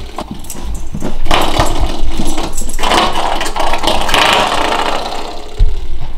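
Wall-mounted spring doorstop being batted and pulled by a small dog, twanging and rattling over and over.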